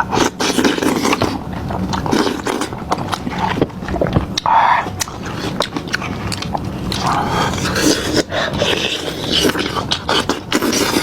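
Close-miked eating sounds: biting and chewing, with many sharp crunchy clicks and wet mouth noises throughout.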